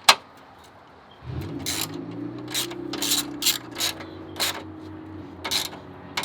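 Irregular sharp clicks and clacks of parts being handled, over a steady low hum that starts about a second in.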